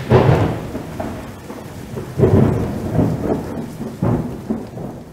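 Deep rumbling booms like rolling thunder, a sound effect: one boom at the start, then further rolls about two, three and four seconds in, fading away toward the end.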